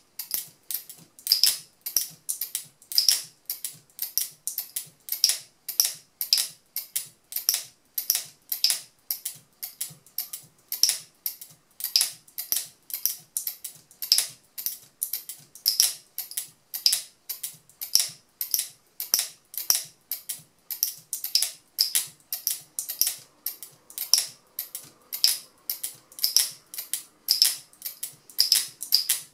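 Turquaz speargun camera mount's locking mechanism being snapped open and shut again and again by hand: sharp clicks, about two or three a second, in a steady rhythm.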